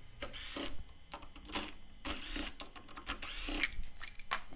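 A small power screwdriver whirring in several short bursts of about half a second, each with a curving pitch, backing out the screws that hold the lid on a plastic junction box.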